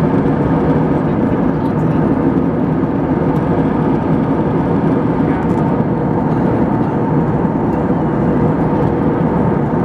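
Steady cabin noise of a jet airliner in flight, heard from inside the passenger cabin: an even, unbroken drone of the engines and rushing air.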